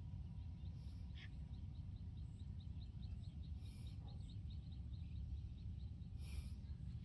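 Outdoor ambience: a low, steady rumble with a run of quick, high ticking calls, about four a second, and a few short hissing rustles about a second in, near the middle and near the end.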